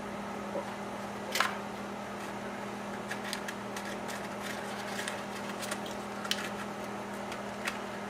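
Light handling of a small engine cylinder and a rag: scattered soft clicks, scrapes and rubbing, the clearest about a second and a half in, over a steady low electrical hum.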